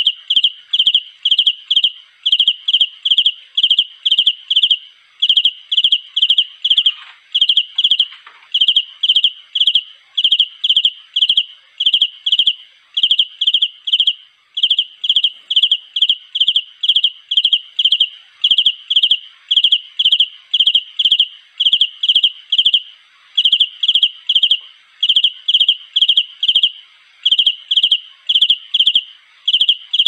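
Male cricket's calling song, sung to attract a mate: loud, high-pitched chirps, about three a second, in runs of several with brief pauses between runs.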